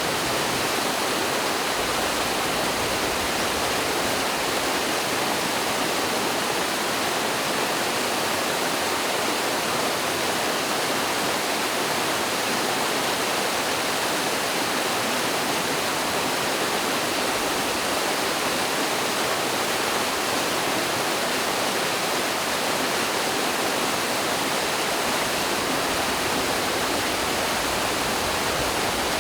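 Mountain stream pouring over a small waterfall in a partly iced winter creek: a steady, even rush of water with little low rumble.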